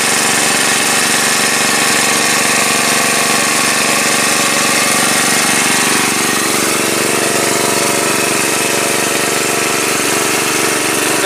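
Small engine running steadily at constant speed, the kind of petrol water pump used to drain a ditch.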